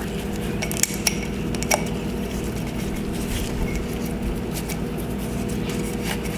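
Scattered light clicks and taps from handling a plastic oil filter cap while a new O-ring is pressed into its groove, over a steady low hum.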